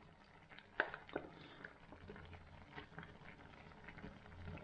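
Faint scattered pops and soft squelches as tomato ketchup is squeezed from a plastic pouch onto Maggi noodles simmering in a pan, with the strongest ticks about a second in.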